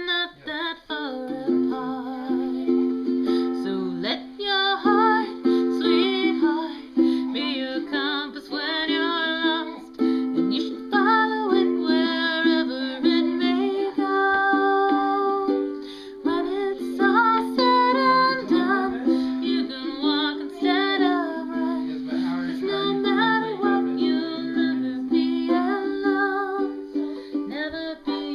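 Background music: a song with a steady plucked accompaniment under a wavering melody line.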